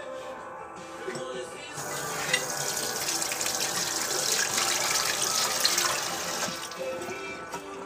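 Water running from a kitchen tap for about five seconds, starting about two seconds in and then shutting off, over background music.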